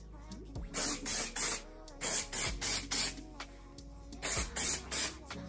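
Aerosol dry shampoo sprayed onto a synthetic wig in short puffs, in three groups of three or four, to take the shine off the synthetic hair.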